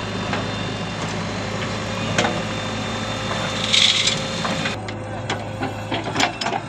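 JCB 3DX backhoe loader's diesel engine running steadily while its backhoe bucket digs into a soil bank, with scraping and several sharp knocks from the bucket and earth. There is a short hiss about four seconds in.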